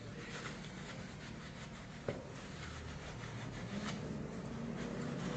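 Paper towel rubbing and crinkling against small stainless steel coffee pot lid parts as they are wiped clean with stainless steel cleaner, with a single sharp click about two seconds in over a low steady hum.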